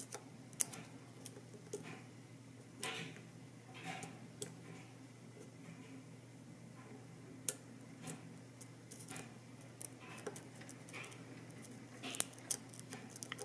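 Light metallic clicks and short scrapes of a steel lock pick working the sliders inside a Vidmar slider lock's keyway, coming irregularly, a dozen or so, over a faint low hum.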